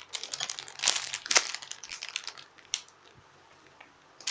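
Plastic packaging crinkling and crackling in irregular bursts as it is handled, falling quiet about three seconds in.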